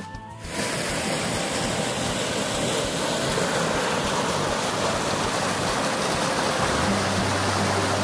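Stream water rushing steadily down a narrow rock chute as whitewater, cutting in about half a second in as background music stops.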